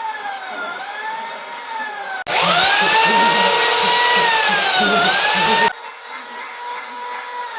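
Chainsaw running with a high motor whine that dips in pitch and recovers as it bites into a sandwich. From about two seconds in until nearly six seconds the same whine is much louder, starting and stopping abruptly.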